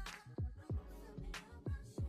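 Quiet R&B/hip-hop music in an instrumental stretch without vocals: a steady beat of deep kick drums that drop in pitch, sharper snare hits and held keyboard notes.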